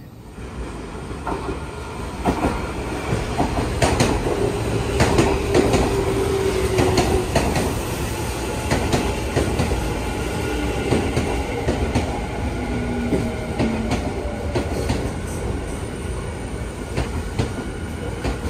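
Tobu Railway electric train running along the track, its wheels clicking over rail joints. It grows louder over the first two seconds, then runs steadily with a faint held tone.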